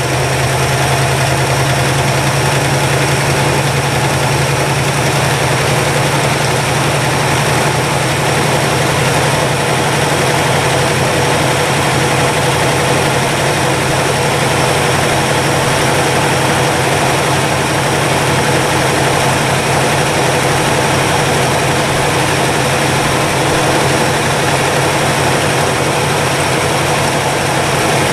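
1962 Chevrolet engine idling steadily while warming up after 35 years parked. It is running quietly now that oil pressure has come up on its fresh oil.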